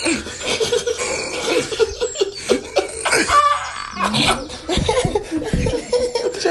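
Several boys laughing.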